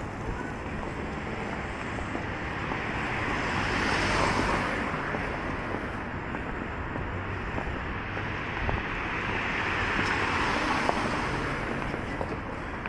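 Two road vehicles passing on the street one after another, their tyre hiss swelling and fading about four and about ten seconds in, over steady traffic and wind noise on the microphone.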